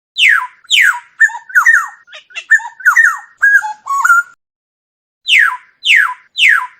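Oriole calling: two harsh calls that each slide steeply down in pitch, then a quick run of shorter notes, a pause of about a second, and three more falling calls near the end.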